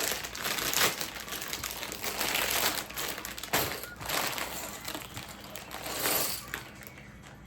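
Plastic Lego parts bag crinkling in repeated surges as it is opened and handled.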